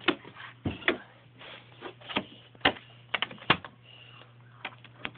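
Irregular sharp clicks and taps of hard plastic toy pieces being handled and set down, over a faint steady low hum.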